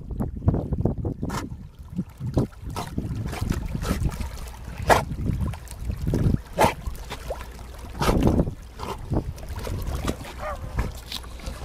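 Wind rumbling on the microphone over the splashing of a dog swimming in the sea, with a few short louder moments about five, seven and eight seconds in.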